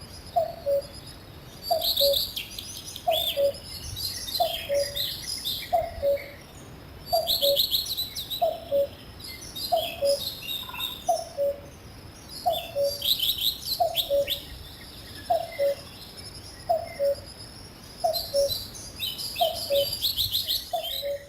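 Common cuckoo calling its two-note "cu-coo", the second note lower, repeated steadily a little over once a second. Several small songbirds sing high, twittering phrases in bursts over it.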